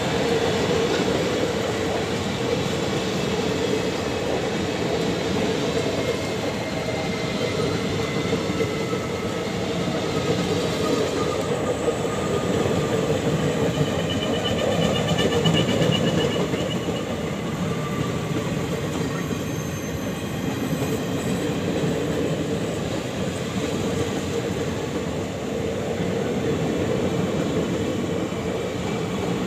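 Coaches of an Indian Railways passenger train rolling past at speed, a steady rumble of steel wheels on rail with clickety-clack, and faint high wheel tones about halfway through.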